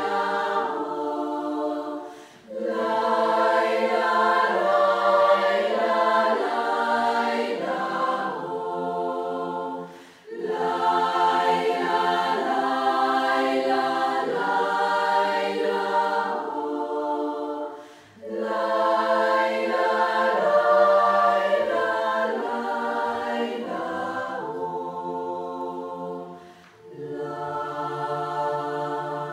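Women's choir singing unaccompanied, in long phrases with a brief pause for breath about every eight seconds.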